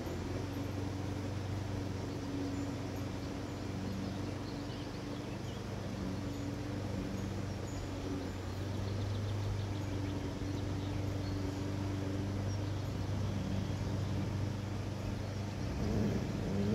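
A steady low engine hum, with faint bird chirps above it and a brief louder disturbance near the end.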